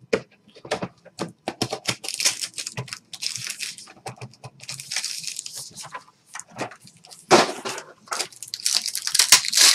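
Trading card pack wrapper being torn open and crinkled, in irregular short crackly bursts with clicks of cards being handled; the loudest crinkling comes near the end.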